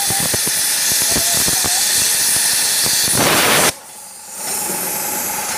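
Plasma cutter arc cutting through a metal plate: a loud, steady hiss with crackling. It cuts off suddenly about three and a half seconds in, when the torch comes off the work, leaving only quieter background noise.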